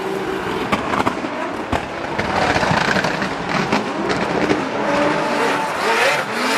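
Two Nissan GT-R R35 drift cars in a tandem drift: engines revving hard with rising and falling pitch over tyre squeal. Several sharp bangs crack out about a second in.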